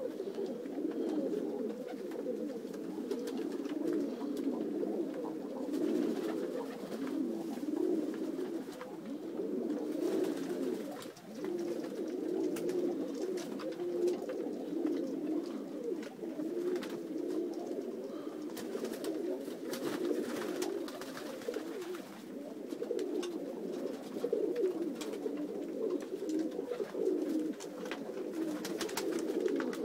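A flock of domestic pigeons cooing continuously, many low coos overlapping.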